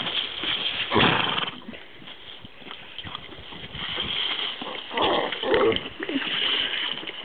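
Garden hose nozzle spraying water onto a horse's head at close range, a steady hiss of spray and splashing, with louder splashing bursts about a second in and again around five seconds in.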